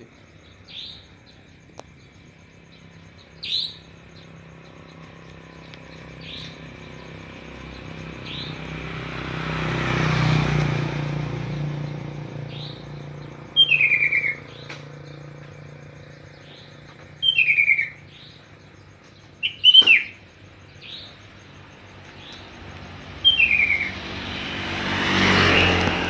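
Nightjars (burung cabak) calling at dusk: sharp, short calls that fall in pitch, repeated every few seconds and loudest in the second half. This is the call that people take for an owl's. Two vehicles pass, one near the middle and one near the end.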